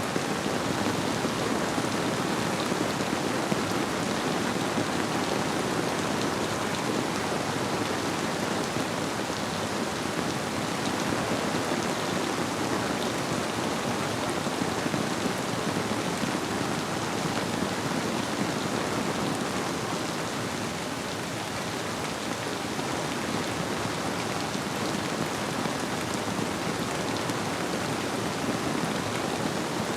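Steady rainfall blended with a flowing river, an even hiss without pauses, dipping slightly about two-thirds of the way through.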